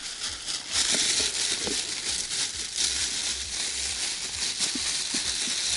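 Thin plastic carrier bag rustling and crinkling as it is handled and opened by hand, a continuous crackly rustle that starts under a second in.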